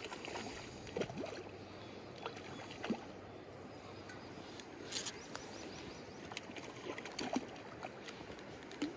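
Steady rush of a shallow creek with scattered short splashes and ticks as a hooked rainbow trout thrashes at the surface and is played on a spinning reel.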